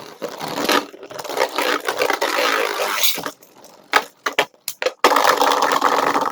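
Two Beyblade spinning tops, one 3D-printed, grinding and clashing against each other and the plastic stadium, with many sharp clicks of impacts. The scraping eases about three seconds in to scattered clicks, then comes back loud for the last second or so.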